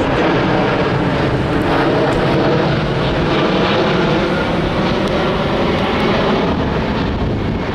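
Airplane flying overhead: a loud, steady engine rumble.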